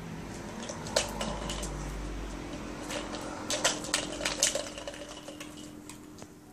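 Small plastic treat ball knocking and rolling on concrete as a dog noses it. There is a sharp click about a second in and a quick run of clatters a little past the middle, over a faint steady hum.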